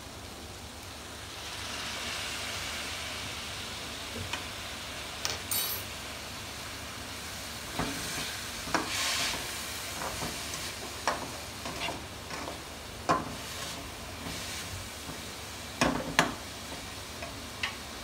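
Shredded vegetables sizzling in a hot non-stick frying pan, the sizzle swelling about two seconds in as a dark sauce goes in. A slotted metal spatula then stirs and tosses them, with scrapes and sharp taps against the pan; the loudest pair of taps comes near the end.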